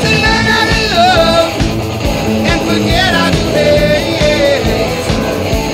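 A rock song with a singing voice over the band.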